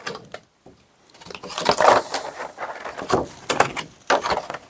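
Board-game components and their packaging being handled: irregular rustles, light knocks and clicks that start about a second in, after a short quiet moment.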